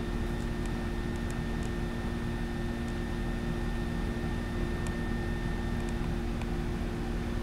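Steady machine hum with constant low tones and a background hiss, broken by a few faint light ticks.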